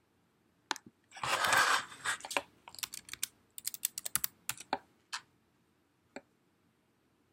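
Hands handling a phone and its packaging: a short rustling scrape about a second in, then a quick run of light clicks and taps.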